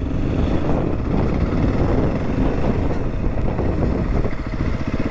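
Dirt bike engine running at low revs as a dense low rumble, settling into an even, regular beat near the end.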